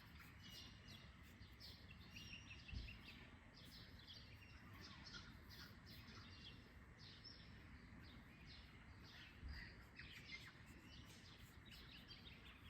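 Faint morning birdsong: many short high chirps and calls from several birds over a quiet background hush, with a soft low bump about three seconds in and again near ten seconds.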